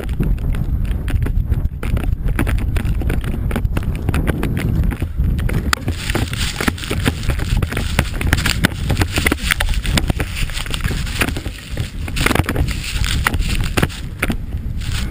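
Snowmobile riding heard through a helmet-mounted microphone: a steady low rumble with many irregular knocks and bumps, and a hiss that grows stronger about six seconds in.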